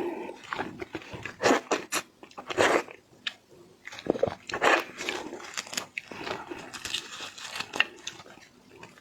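Close-miked eating of seafood: irregular bites, crunches and chewing.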